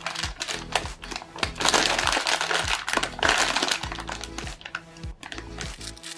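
Background music, with the clear plastic bag of a squishy toy crinkling as it is handled, loudest about two and three seconds in.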